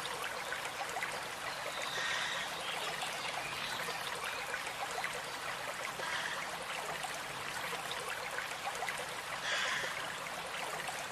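Small stream trickling and babbling steadily over stones.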